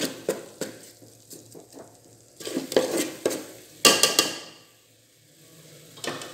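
A metal ladle clicking and scraping against a metal pot as a spice masala is stirred while it fries and sizzles in oil, at the stage where the spices are browning and the oil is separating. The stirring stops about four seconds in, leaving a quieter sizzle, with a short clatter near the end.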